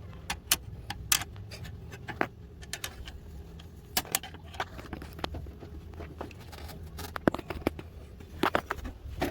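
Scattered, irregular sharp metallic clicks and clinks, like hand tools or small metal parts being handled, over a steady low hum.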